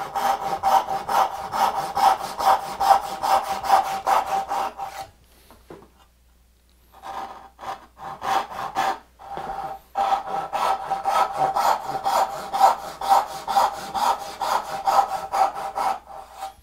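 Backsaw cutting a poplar board by hand: about three strokes a second with a steady ring from the saw. The strokes stop about five seconds in, come back unevenly for a few seconds, then run on steadily.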